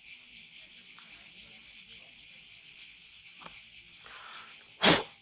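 Steady high chirring of insects, with faint scraping of a tyre-plug kit's reamer being twisted in the puncture channel of a car tyre's tread to clean it out. One sharp knock near the end.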